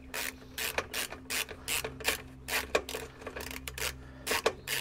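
Hand ratchet clicking in quick, even strokes, about four clicks a second, as the mower's recoil starter housing is screwed down.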